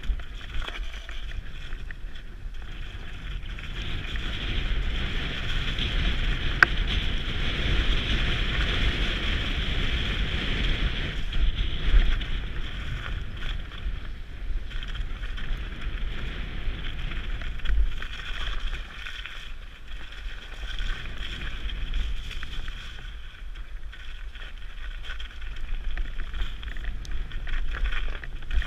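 Mountain bike rolling fast downhill on a snowy, muddy singletrack: steady tyre and trail noise with wind rushing over a helmet-mounted camera, and a single sharp knock a few seconds in.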